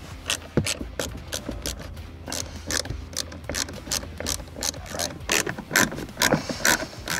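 Ratchet wrench with a 13 mm socket clicking as it is swung back and forth, undoing the plastic nuts on a car's accelerator pedal assembly: a run of sharp clicks, several a second.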